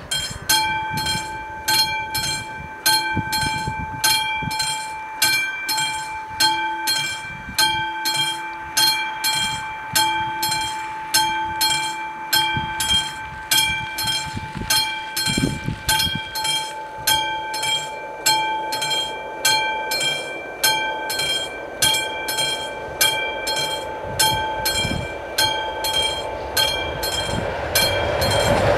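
Mechanical bells of an AŽD 71 level crossing ringing in a steady, rapid run of strikes, each strike ringing on, warning that a train is coming. From about two-thirds of the way in, the rumble of the approaching train grows louder.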